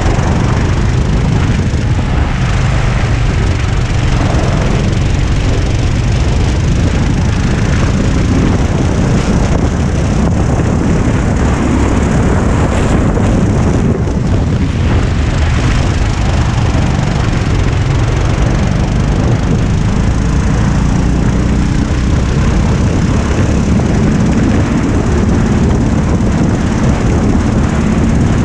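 Honda four-stroke rental kart engine running hard under racing load, heard from the driver's seat, with wind and road noise rushing over the microphone; the sound stays loud and steady throughout.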